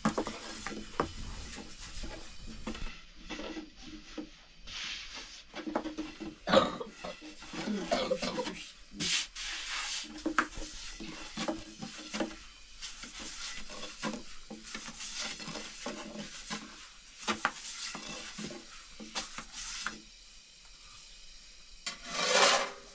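Long thin wooden rolling pin rolling out thin flatbread dough on a floured wooden board: repeated rubbing strokes with light knocks of wood on wood. Near the end, a single louder, brief rushing sound.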